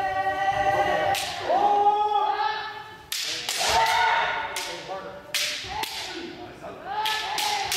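Kendo practice: bamboo shinai striking armour with sharp cracks, about ten of them, over long, drawn-out kiai shouts from several practitioners, all echoing in a gymnasium.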